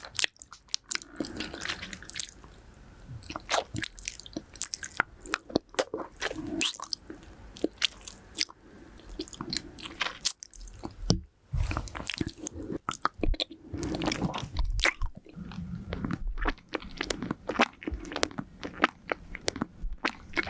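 Close-miked hard lollipop candy being eaten: irregular sharp clicks and crunches of the candy against the teeth, with wet mouth sounds. Low puffs of nose breath hit the microphone now and then.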